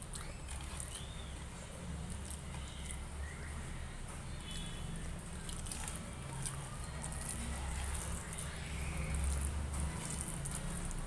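Fingers mixing rice with dal and curry on a plate: soft wet squishing with scattered small clicks, over a steady low hum.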